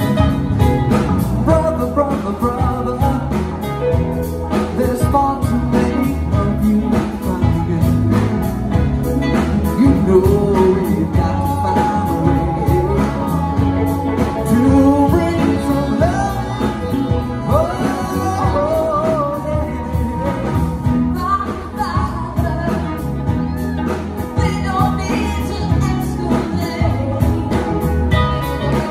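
Live band playing: several saxophones, electric guitars, a grand piano, bass and drums together, with a gliding lead melody line over a steady bass.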